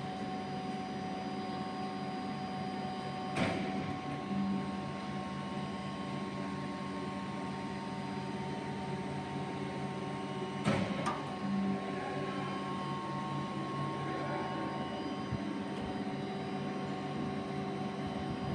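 A special-purpose twin-side CNC turning machine running with a steady hum carrying several steady tones. A sharp clunk comes about three seconds in and again about ten seconds in, each followed by a short tone about a second later.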